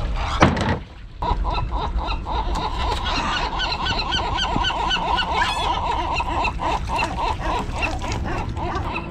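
A dense chorus of animal calls, many short calls overlapping, with a loud knock just under half a second in.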